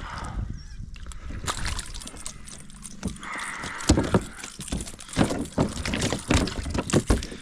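Irregular knocks and thumps of hands and gear against a hull, with water sloshing, as a freshly caught sooty grunter is handled on the water.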